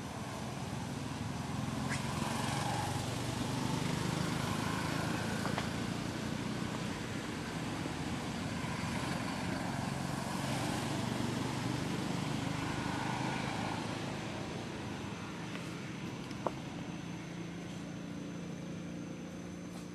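A vehicle engine running with a steady low hum, growing louder a couple of seconds in and easing off after about twelve seconds; a single sharp click about sixteen seconds in.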